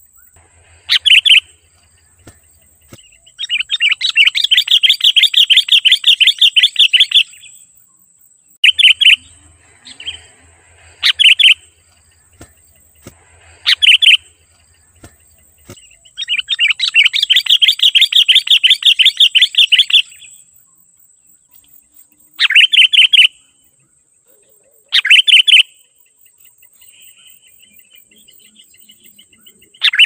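Sooty-headed bulbul (kutilang) singing loudly in short, rapid chattering phrases every two or three seconds, with two longer runs of about four seconds each.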